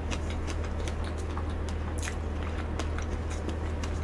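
A person chewing a mouthful of soft strawberry cream cake close to the microphone, with many small mouth clicks and smacks at an uneven pace. A steady low hum runs underneath.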